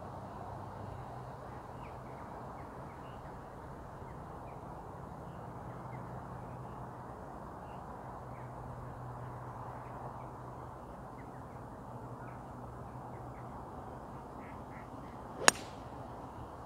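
A golf hybrid striking a ball off the tee: one sharp crack about fifteen seconds in. Before it, a quiet outdoor background with faint bird calls repeating throughout.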